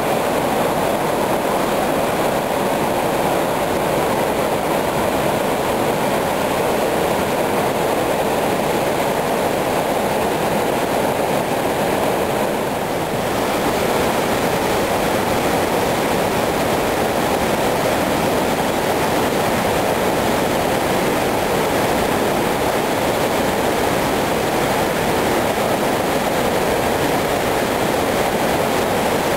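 Steady, loud rush of whitewater crashing over boulders in a mountain creek. There is a short dip and a slight change in tone a little before halfway through.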